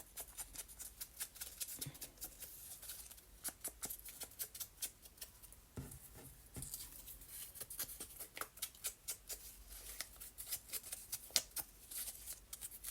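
Paper being torn by hand: a fast, irregular run of faint, crisp crackles.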